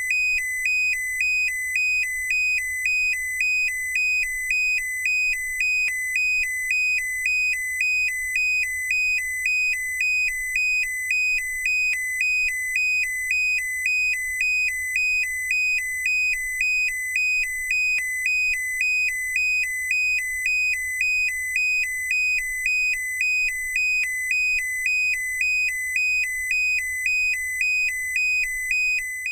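A car's lights-on warning chime: an electronic beep alternating steadily between two high tones, sounding because a door is open while the headlights are still switched on.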